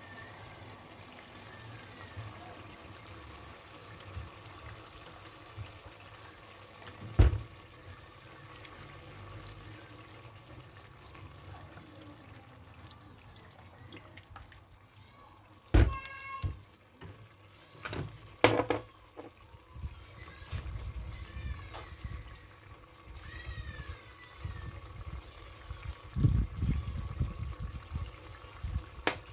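Sauce poured from a bottle into a steel pot, with a few sharp knocks as the bottle and pot are handled. Near the end a plastic spoon stirs and scrapes in the pot.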